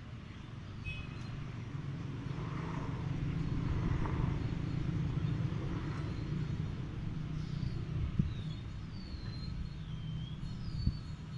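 Electric hair clipper running with a steady hum as it trims the hairline around the ear, with a couple of sharp clicks near the end.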